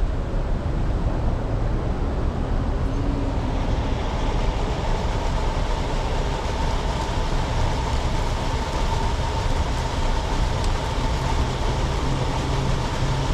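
Car engine idling as the car rolls slowly forward, a steady low rumble. A faint steady tone joins about four seconds in.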